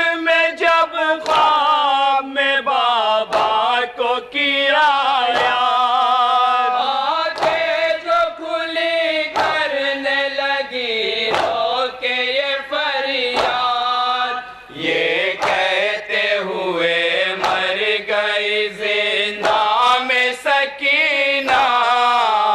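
A noha sung by a group of male reciters through a PA system in a sustained lamenting melody, with regular sharp strikes of matam (chest-beating) keeping time.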